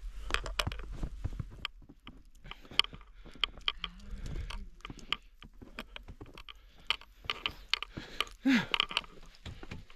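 Irregular crunching and clicking of footsteps in fresh snow, with a louder cluster of crunches and a short falling tone near the end.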